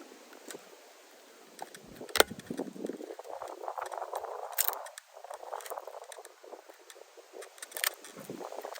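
Handling noise from tools and hands working on a wooden bee package: scraping and rustling, broken by sharp clicks and knocks. The loudest click comes about two seconds in.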